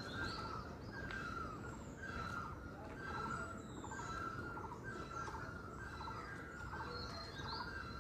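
Great barbet (nyauli) calling, one call repeated over and over about once a second, with other small birds chirping higher above it.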